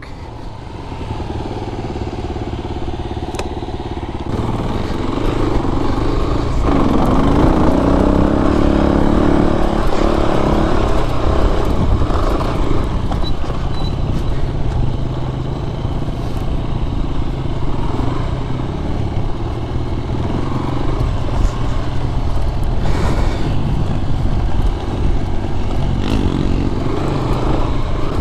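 Kawasaki KLR 250 single-cylinder four-stroke dirt bike engine running under way on a trail, heard close up from on the bike. It gets louder about five seconds in as the throttle opens, the engine note rising and falling with the throttle.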